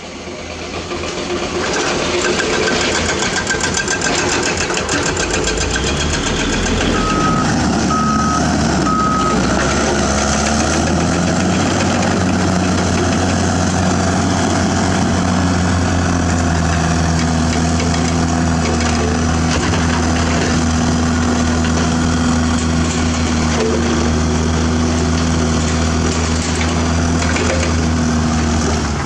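Heavy diesel earthmoving machinery at work, with a backup alarm beeping three times about seven seconds in. From about ten seconds on, a Caterpillar D6R bulldozer's diesel engine runs steadily under load as it pushes limestone rubble.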